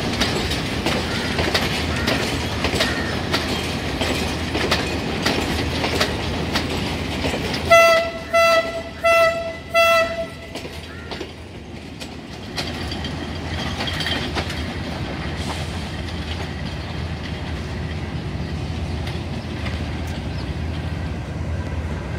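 Passenger train running along the rails, heard from on board: a steady rumble with regular wheel clicks over the rail joints. About eight seconds in, a train horn sounds four short blasts of one tone. The running noise then dips and builds again.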